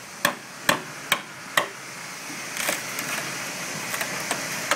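Hammer blows tapping at fibreglass sheathing on a wooden yacht hull, in a steady rhythm of about two a second at first, then lighter taps. There is a short burst of noise about two and a half seconds in.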